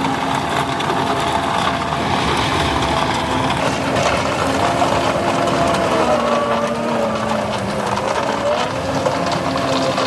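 Diesel engine of heavy construction machinery running steadily, with a faint whine that wavers in pitch.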